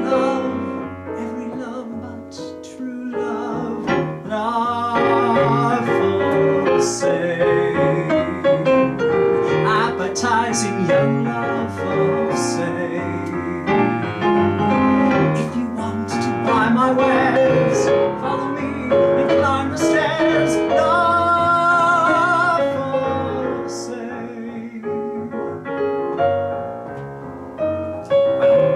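A male singer holding long notes with vibrato over live piano accompaniment.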